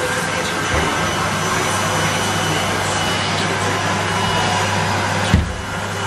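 Henry tub vacuum cleaner's motor running steadily with a steady hum and hiss, and a brief thump about five seconds in.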